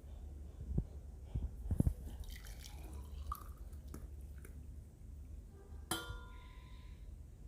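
Hot ginger and lemongrass water being poured through a strainer into a glass: a few soft knocks of the pan and strainer, light dripping, and one sharp clink with ringing about six seconds in.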